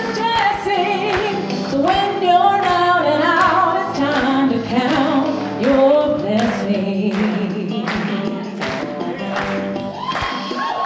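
A woman singing into a hand microphone, backed by instrumental music with a steady beat.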